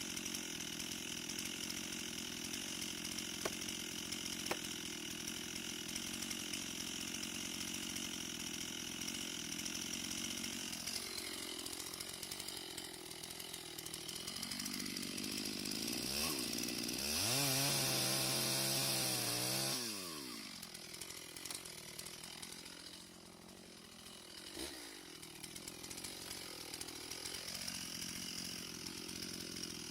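Chainsaw engine running and revving up and down, cutting timber, with its hardest, loudest rev a little past the middle.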